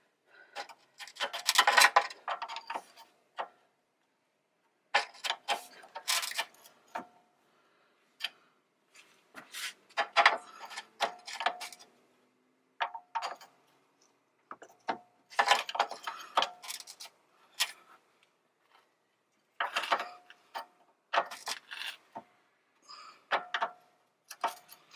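An 18 mm wrench clicking and clinking against the metal power steering line fittings on a rack and pinion as they are worked loose. The clicks come in irregular bursts with short pauses between them.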